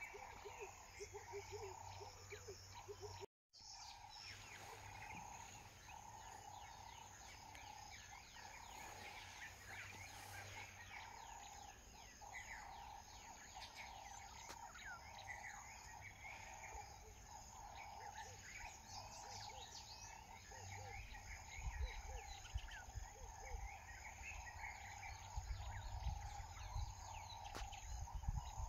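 Faint bush ambience: a steady insect drone with many short bird chirps and calls over it. It cuts out for a moment about three seconds in, and a low rumble grows louder over the last several seconds.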